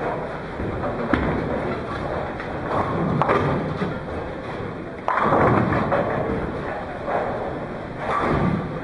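Tenpin bowling alley: a bowling ball is set down on the lane about a second in and rolls toward the pins. A sharp hit a little after three seconds is it knocking down the single remaining pin for a spare. A louder crash about five seconds in rises over the steady clatter of balls and pins on the neighbouring lanes.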